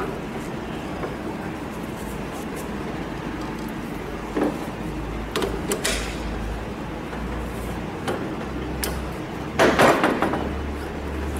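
Steel dismounting tools and a dial wrench knocking and clinking against a CAT 3126B fuel injector held in a bench vise, as the tool is fitted and turned. Scattered knocks, the loudest cluster near the end, over a steady low hum.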